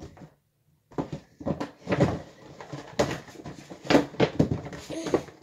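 Small plastic toys being handled and set down, giving a string of sharp knocks and clatters with rustling between them.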